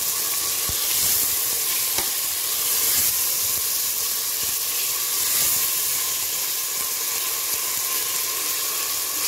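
Minced meat and ginger-garlic paste sizzling steadily in hot mustard oil with fried onions in an aluminium pressure cooker, stirred with a steel spoon that knocks against the pot a few times.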